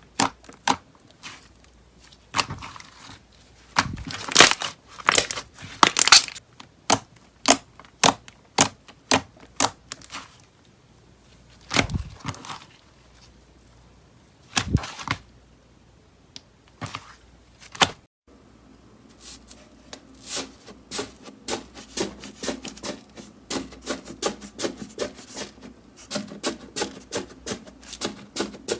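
Slime being squeezed and pressed by hand, making a string of sharp, wet clicks and pops. The pops are spaced irregularly at first, then come as a faster, steady run of clicks after a cut about eighteen seconds in.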